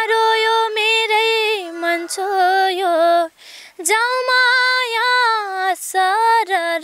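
A young girl singing a Nepali folk song unaccompanied, one voice in long held phrases with wavering ornaments and short pauses for breath.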